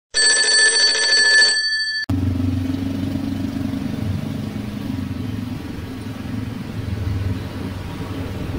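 A short, loud bell-like chime with ringing tones that cuts off about two seconds in. It gives way to the steady sound of motorbike and scooter traffic, engines humming as they ride along a city street.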